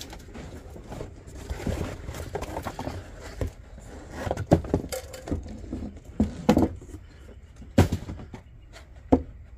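Unpacking a pressure lantern: cardboard and paper packing rustles, then a series of sharp knocks and clinks as the metal lantern and its glass globe are handled and set down on a wooden workbench.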